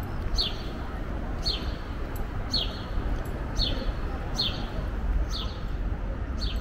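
A bird repeats a short, high call that slides downward, about once a second, seven times. Under it runs a steady low rumble.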